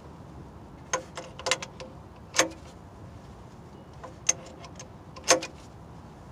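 Scattered sharp metal clicks and clinks of wrenches on a harmonic balancer installer tool as the puller body is tightened, pressing a crankshaft vibration damper onto the crank. About seven irregular clicks, the loudest about two and a half seconds in and near the end.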